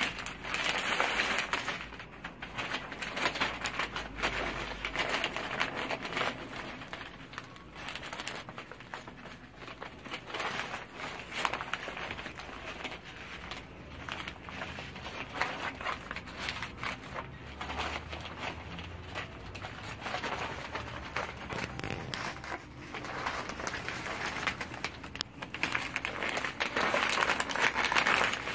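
Stiff gold metallic brocade gele fabric rustling and crinkling as it is wrapped, pleated and tucked around a head, handled close to the microphone.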